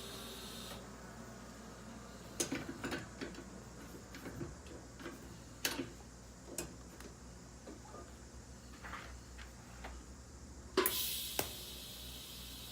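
TIG welding arc on stainless steel: its steady hiss cuts off about a second in, then a run of light clicks and knocks while the torch and work are handled between welds. Near the end the arc strikes again with a sharp crack and the hiss resumes.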